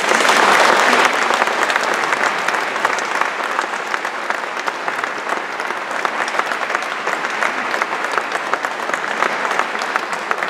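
Audience applauding. The clapping breaks out all at once, is loudest in the first second, then carries on steadily.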